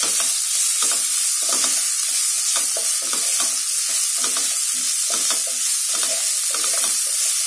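Chopped onions and ginger-garlic paste sizzling in oil in a nonstick pan while a wooden spatula stirs and scrapes them in quick strokes, about two a second, over a steady frying hiss.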